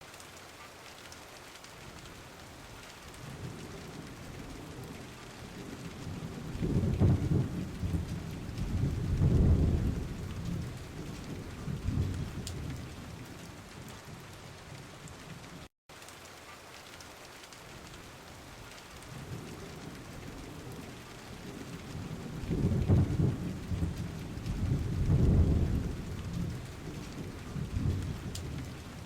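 Steady rain with thunder. A long, low roll of thunder swells and fades in the first half, and another comes in the second half; the sound drops out for a split second halfway through.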